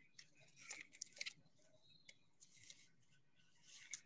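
Trading cards being handled: faint rustles and light clicks, a cluster about a second in and a few more near the end.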